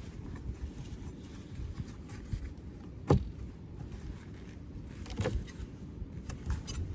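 Wind buffeting the microphone as a steady low rumble, with a sharp knock about three seconds in and a fainter one a couple of seconds later.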